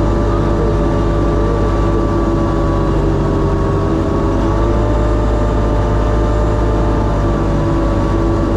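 Sherp amphibious ATV's diesel engine running at a steady, even drone with no revving.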